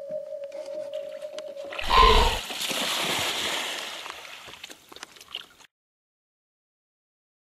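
A steady held tone, cut off about two seconds in by a sudden loud, deep thump and a rushing noise that fades over about three seconds before the sound cuts out abruptly.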